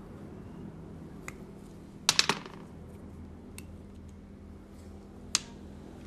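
Small sharp clicks of plastic and metal parts as a DPDT rocker switch is pried apart by hand with a small tool: a quick cluster of clicks about two seconds in, and single clicks before and after it.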